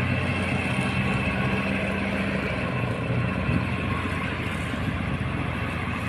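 A river barge's diesel engine running at a steady speed, a low, even drone with no rise in pitch.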